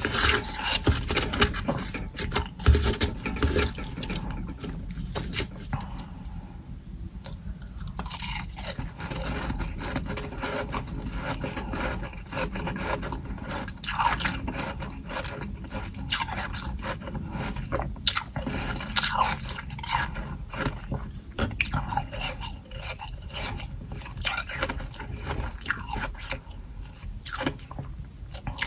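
Close-miked crunching and scraping of soft humidifier frost from a freezer tray as it is bitten and chewed, with many short crunches that come thickest in the first few seconds.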